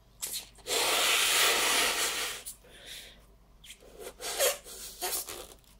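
A long white modelling balloon being inflated: a long rush of air for about a second and a half, then softer rubbing and scraping of the taut rubber as it is handled.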